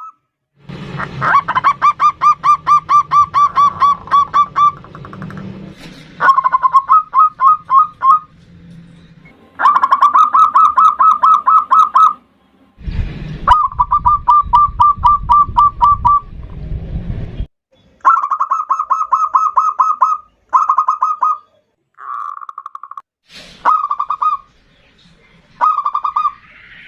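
Zebra dove (perkutut) cooing: about nine phrases, each a fast run of staccato coo notes, separated by short pauses. A low rumble runs under two of the phrases.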